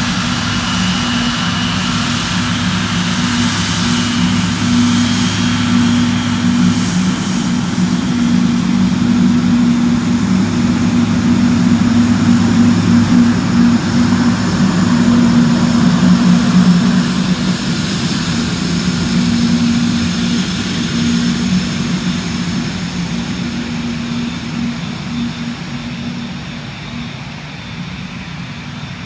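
Wide-body jet airliner's engines at takeoff power, a steady roar with a low hum, growing louder to a peak a little past halfway as the aircraft passes, then fading as it moves away.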